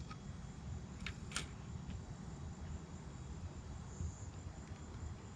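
Steady high-pitched insect trilling, like crickets, over a low steady rumble, with a couple of small sharp clicks about a second in.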